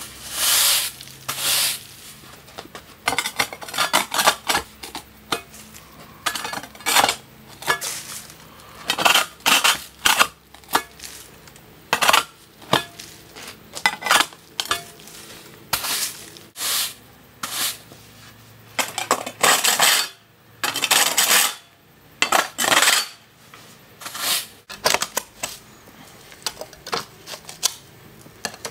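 Stiff push broom bristles scraping across rough concrete in short, irregular strokes, each a brief swish with pauses between.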